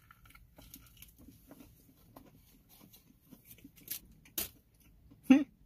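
Close-up chewing of a McDouble burger topped with crispy chicken nuggets: soft, irregular crunching and wet mouth clicks, with two sharper clicks about four seconds in and a brief vocal sound near the end.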